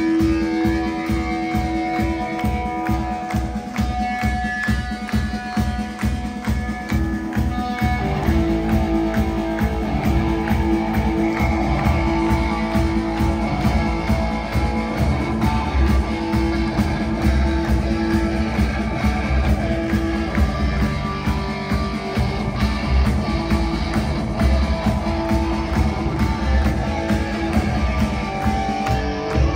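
A rock band playing live: an instrumental passage led by guitars over a steady low beat, with no singing. The texture changes about eight seconds in.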